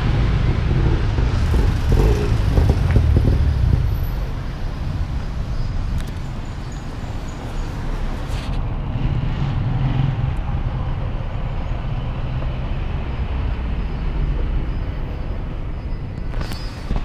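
City street traffic: a motor vehicle passes close in the first few seconds, then a steady hum of traffic carries on.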